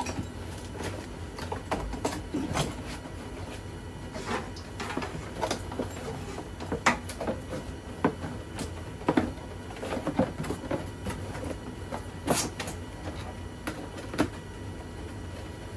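Handling noise as an electric chainsaw sharpener and its power cord are packed into a cardboard box: irregular knocks, clicks, scrapes and cardboard rustling, with the box being closed near the end.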